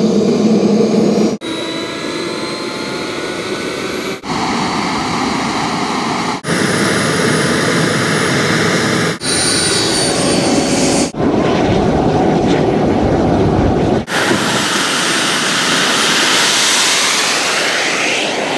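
Model-jet turbine engines running with a high whine, heard as a string of short clips that cut abruptly one to the next. In the last few seconds a louder jet rush whose pitch sweeps as the model jet rolls out for takeoff.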